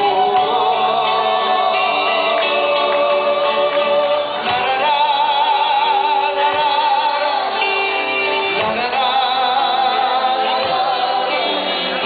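Two men singing a folk song together in harmony over strummed acoustic guitars, long held notes with vibrato, heard live through a PA.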